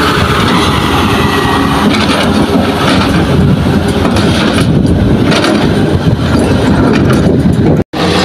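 Diesel dump truck engine running steadily under load as the loaded truck drives off up a gravel haul road, with a brief dropout near the end.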